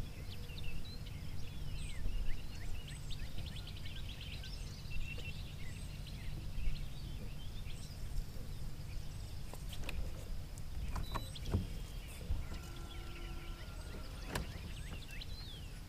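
Outdoor lakeside ambience: many birds chirping and calling, thickest in the first few seconds, over a steady low rumble. There are a few sharp clicks in the second half.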